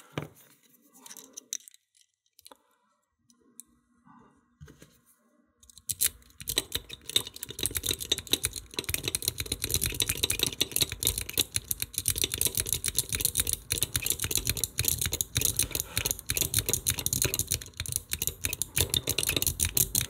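A steel lock pick raked and jiggled back and forth under tension inside a 1980s Assa bike lock's slider cylinder: dense, rapid metallic clicking and scratching, starting about six seconds in after a few faint handling clicks.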